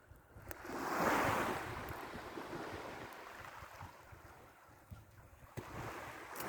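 Waves breaking and washing in: a swell of surf noise about a second in that fades slowly, and a second, weaker one near the end. Wind rumbles on the microphone underneath.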